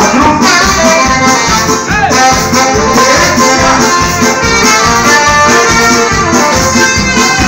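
Live dance band playing: trombone and saxophone over keyboard and drums, with a steady beat.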